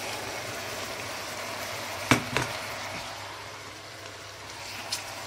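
Eggplant filling sizzling steadily in a steel pot on the hob, with two sharp knocks a little after two seconds in and a lighter click near the end.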